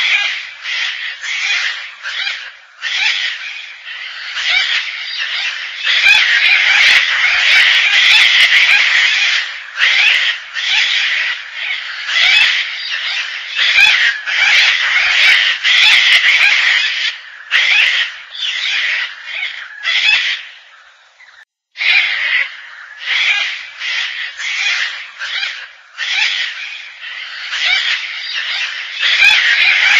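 Gang-gang cockatoo calling over and over in rough, rasping, creaky screeches, packed closely together, with a brief pause about two-thirds of the way through.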